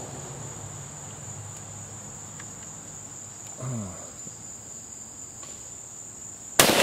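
A steady high insect drone. Near the end comes a single shot from a Swiss K31 straight-pull rifle in 7.5x55mm, with a long echo trailing off.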